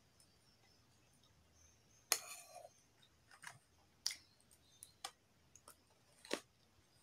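Metal spoon clinking and scraping against a china plate while scooping rice: a handful of separate sharp clinks, the loudest about two seconds in with a short ring, then others about four, five and six seconds in.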